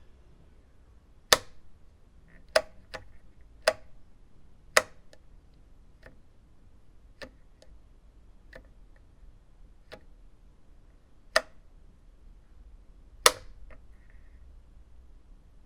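Wall light switch flicked on and off, giving sharp single clicks at irregular intervals. About six loud snaps and several fainter ticks, over a low hiss.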